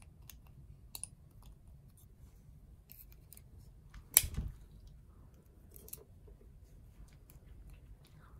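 Small parts of a disassembled pocketknife being handled: faint scattered clicks of the blade and handle parts, with one sharp click about four seconds in.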